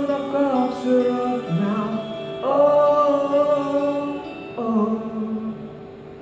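A singer holding long wordless 'oh' notes at the close of a song, about four sustained notes with slides between them; the last one dies away near the end.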